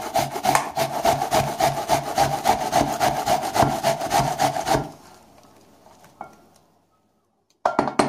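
An onion being grated on a metal box grater, in quick, even rasping strokes that stop about five seconds in. A short knock follows near the end.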